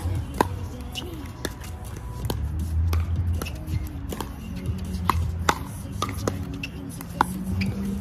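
Pickleball paddles hitting a plastic pickleball in a rally: a string of sharp, hollow pops at irregular spacing, some louder and some fainter.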